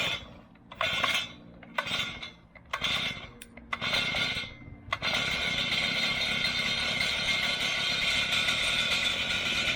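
Earthquake MC33 mini tiller's 33cc two-stroke engine being started on the recoil pull cord: about five quick pulls a second apart, then it catches about five seconds in and keeps running steadily. This is its first cold start on fresh fuel mix.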